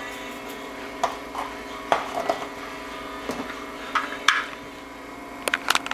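Light clinks and taps of a spoon and plastic container against a stainless-steel mixer-grinder jar as salt is added, with a quick run of clicks near the end, over a steady low hum.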